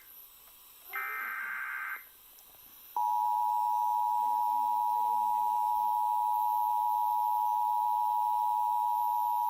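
Emergency Alert System tones: one more of the SAME header's one-second data bursts, a harsh chirping screech, and about a second later the steady two-tone attention signal. This is the signal that a warning message is about to be read.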